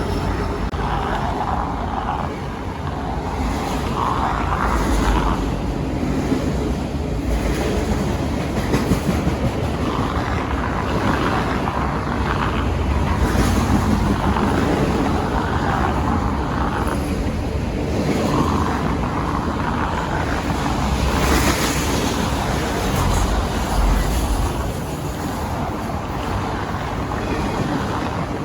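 A train rolling past: a steady low rumble with a swelling mid-pitched noise that rises and falls every second or two.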